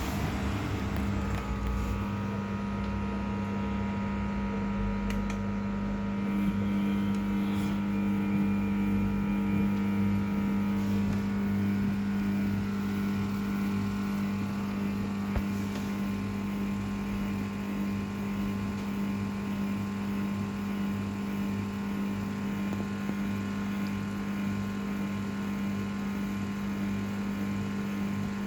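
Samsung WF0600WJV washing machine running with a steady hum.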